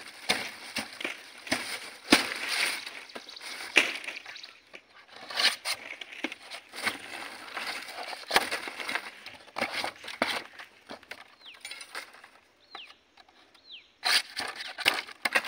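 Palmyra palm leaf being cut and split with a knife: rustling and crackling of the stiff leaf with a series of sharp cuts and snaps, quieter for a moment a little before the end.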